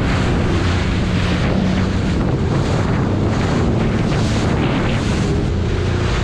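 Jet ski running at speed over choppy sea: a steady engine hum under loud rushing water spray off the hull and wind buffeting the microphone.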